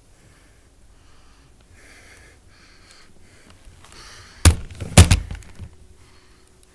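Two loud thumps about half a second apart, then a few lighter knocks: handling knocks against the camera or the surface it stands on, close to the microphone.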